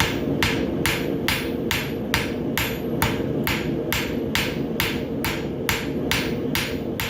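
Farrier's hand hammer striking a hot steel bar shoe on the anvil in a steady rhythm, a bit more than two blows a second: forge-welding the fluxed, scarfed joint on the shoe's back side.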